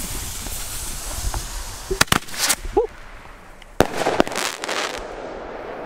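Consumer fireworks going off: a fizzing hiss fading away, then sharp bangs, two close together about two seconds in and several more around four to five seconds in.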